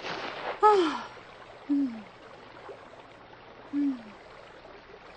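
Soft vocal sounds from a couple kissing: a breathy sigh with falling pitch about half a second in, then two short hummed murmurs, each falling in pitch, a second and two seconds later.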